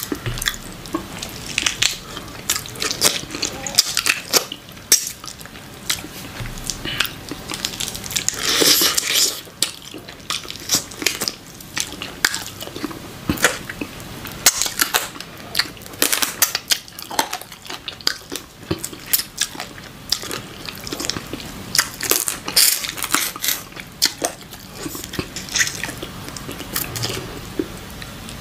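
Close-miked eating: stewed chicken pulled apart by sauce-covered fingers and bitten, with wet chewing and lip smacks. The sound is a steady run of irregular wet clicks and smacks.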